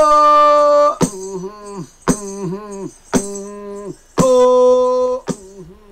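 Xingu Indigenous chant: a man singing, with a rattle stroke on a steady beat about once a second. A loud held note comes at the start and again about four seconds in, between shorter notes that bend in pitch.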